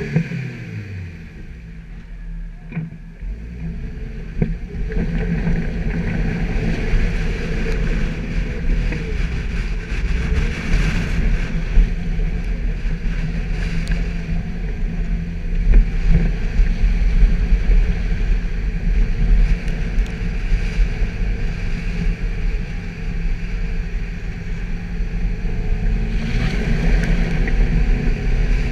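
Suzuki Jimny's engine running under load off-road, quieter at first and louder from about four seconds in, with occasional knocks and bangs from the vehicle over rough ground.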